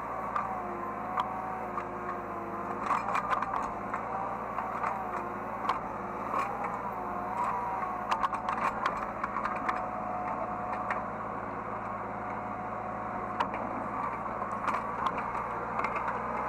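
Hydraulic excavator heard from the operator's seat: the engine runs steadily while a whine from the hydraulics wavers up and down in pitch as the machine is worked. Scattered clatters and knocks sound throughout, most densely a few seconds in and again around the middle.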